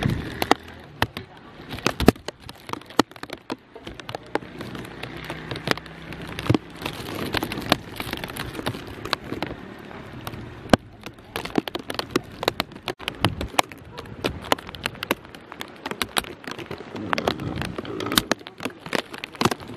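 Footsteps crunching on loose gravel, an irregular run of sharp clicks and crunches.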